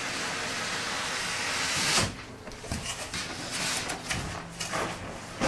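Cardboard box lid sliding off the box with a long scraping hiss that grows louder and stops sharply about two seconds in. Lighter rustles and knocks of the cardboard and foam packing being handled follow.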